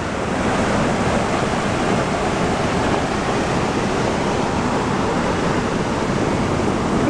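A waterfall in full flow, its whitewater rushing steadily.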